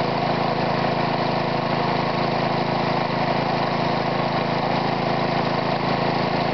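Homemade air compressor converted from a Briggs & Stratton lawnmower engine, running steadily and pumping air into the line as the pressure climbs slowly near 80 psi.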